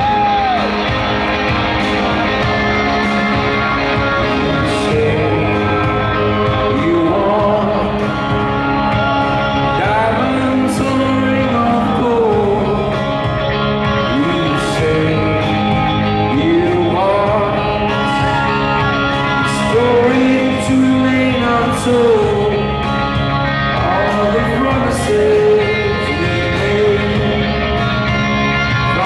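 Live rock band playing: a male lead vocal sung over electric guitar and drums.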